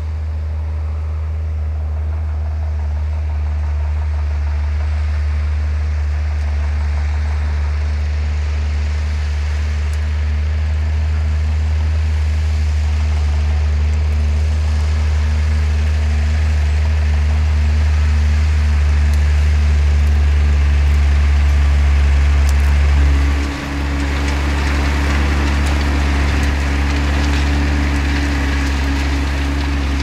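New Holland tractor's diesel engine working steadily under load while pulling a plough, getting gradually louder as it nears. About three-quarters of the way through the sound drops out for an instant and comes back with a slightly higher note added.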